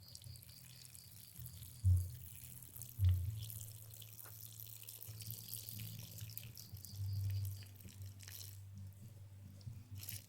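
Wet, sputtering diarrhoea fart sounds with dripping, splattering noise: short low blasts about two and three seconds in, and a longer one around seven seconds.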